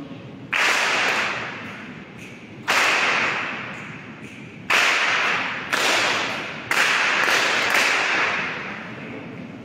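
Five sudden bursts of rushing, hiss-like noise, each starting sharply and fading over about a second, made together by the seated group in the hall.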